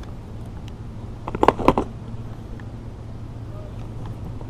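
A pike is being unhooked from a lure in a landing net: a quick cluster of knocks and rattles about a second and a half in, over a steady low hum.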